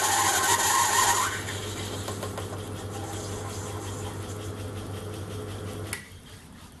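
Schaublin 102 metal lathe turning a small part, the tool cutting with a loud wavering whine for about the first second. The lathe then runs on without cutting, with a steady motor hum, until it is switched off with a click about six seconds in.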